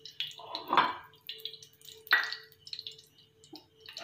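Cooking oil poured from a small glass onto a cast-iron tawa, with light clinks of glass and pan. A louder scrape or splash comes about two seconds in, followed by sparse small crackles.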